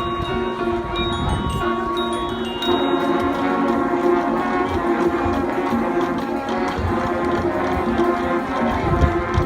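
Marching band playing held chords, with a change of chord about two and a half seconds in.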